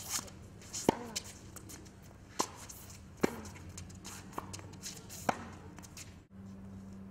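Tennis rally on a hard court: sharp pocks of racket strings striking the ball and the ball bouncing, about six in all, spaced a second or two apart, with shoes shuffling between shots.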